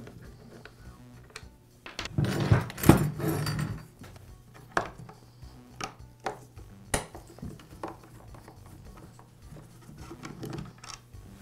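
Hand screwdriver and plastic chainsaw housing being handled as the handle screws of a Poulan chainsaw are worked out. There is a louder stretch of clattering and scraping about two seconds in, then scattered light clicks and knocks.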